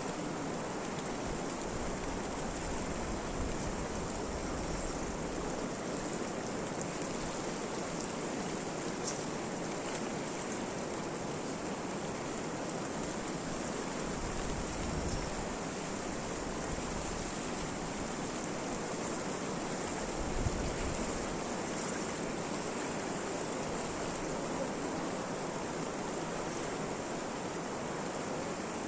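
Steady, even rushing of water, with a few faint ticks.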